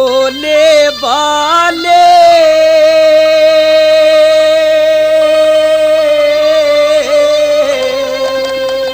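Male voice singing a Haryanvi ragni. A few wavering, gliding ornaments lead into one long held note of about six seconds.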